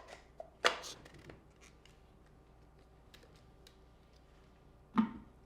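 Plastic bottom cap of a water-filter housing being twisted on: a short loud scrape, then a string of faint plastic ticks and clicks as the threads turn. Another brief, louder noise comes near the end.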